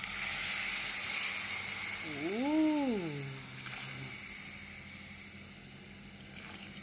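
Coconut milk poured onto browned tofu in a hot pot, setting off a sizzle that starts suddenly and slowly dies away over several seconds. A short drawn-out vocal exclamation, rising then falling in pitch, sounds about two and a half seconds in.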